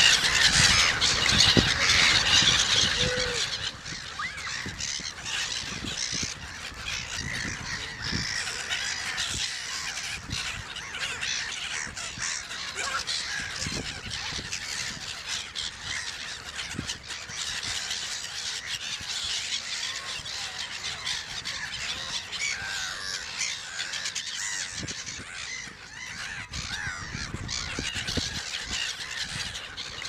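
Black-headed gulls calling harshly and densely for the first few seconds, then a quieter, continuous chorus of many short bird calls and chirps.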